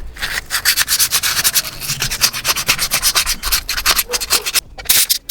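400-grit sandpaper rubbed quickly back and forth over the repaired A-pillar metal, several strokes a second, pausing briefly before a final burst: sanding the area smooth to prepare it for primer.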